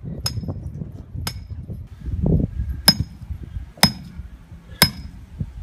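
A hammer striking the top of a metal ground rod for an electric fence energizer, driving it into the soil. There are five sharp metallic blows, each with a short ring, about one a second with a slightly longer gap after the second.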